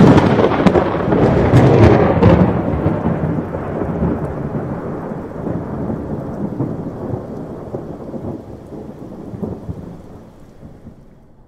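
Thunder: a loud crackling clap at the start that rolls into a long rumble and slowly fades away.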